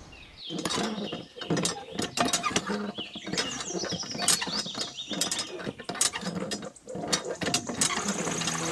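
Irregular mechanical clicking and clatter, with rapid ratchet-like clicks and knocks and a few short squeaks.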